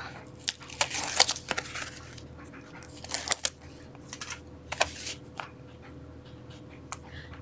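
Backing liner being peeled off strips of double-sided tear-and-tape on chipboard: scattered short crackles and rips, with small taps of paper and board being handled.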